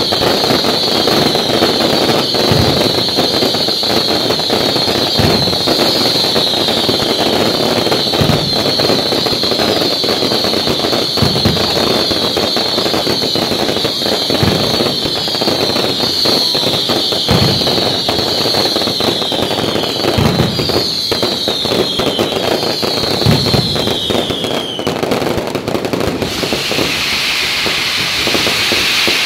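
Aerial fireworks going off in a dense barrage: steady crackling with overlapping high whistles that keep falling in pitch, and a dull boom about every three seconds. The whistling stops about 25 seconds in, leaving a hissing rush.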